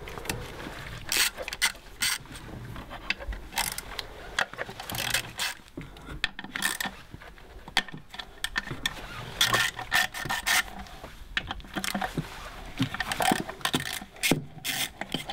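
Hand ratchet with a Torx T30 bit clicking and rasping in short, irregular runs as the screws holding the engine control unit are turned out.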